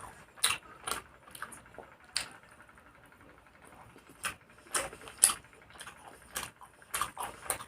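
A person chewing and smacking their lips while eating a meal of fried rice and chicken: irregular sharp mouth clicks, with a quieter pause of about a second and a half before the clicks pick up again.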